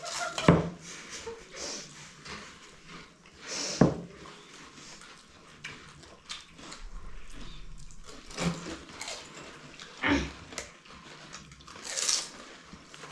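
Several people eating panipuri fast: crisp puri shells biting and crunching, with irregular sharp knocks and short noisy swells.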